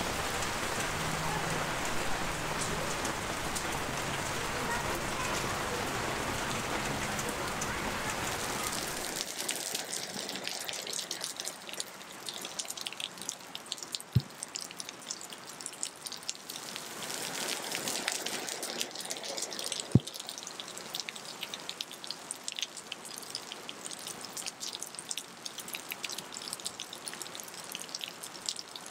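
Heavy rain pouring onto the street as a dense, even hiss. About nine seconds in it drops away abruptly to a sparser patter of separate drops and drips, with two sharp knocks a few seconds apart.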